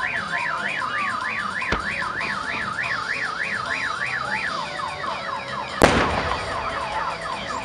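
An electronic alarm siren warbles up and down about three times a second, then switches to quick repeated falling tones. A firework shell bursts with a loud bang about three-quarters of the way through, after a smaller bang about two seconds in.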